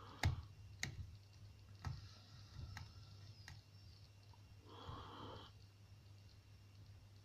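Metal lock pick clicking against the pins inside a ZI Ikon euro profile cylinder as it is picked under tension: about five sharp clicks at irregular intervals, over a low steady hum.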